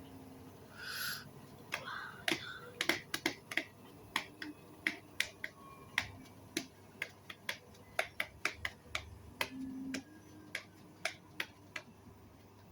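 An irregular run of sharp clicks and taps, at times several a second.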